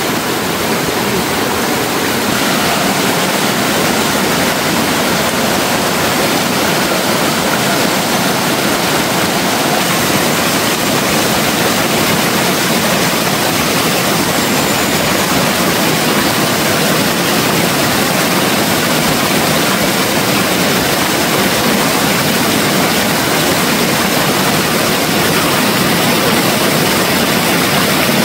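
Rushing water, loud and steady, with no breaks or changes, the sound of a stream close by.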